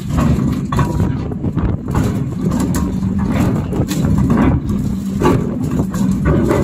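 Ship's anchor chain running out over the windlass gypsy as the anchor is dropped: a loud, dense rumble of heavy steel links clanking.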